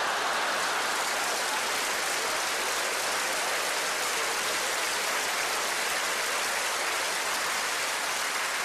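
Large theatre audience applauding steadily in response to a joke.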